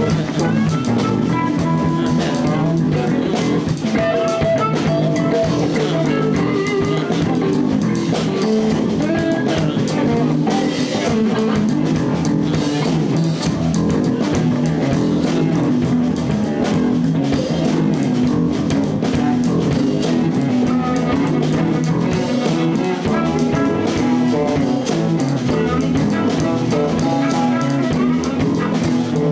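Live blues band playing an instrumental passage: electric guitar lines over bass and a steady drum-kit beat.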